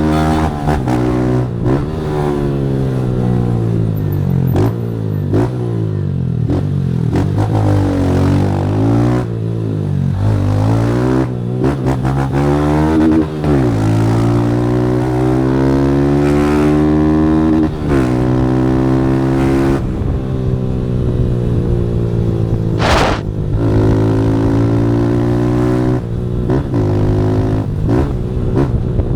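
Motorcycle engine running through a Fortuna Trioval aftermarket exhaust, revving hard under way. Its pitch repeatedly climbs and then drops back, again and again, as the rider works through the gears.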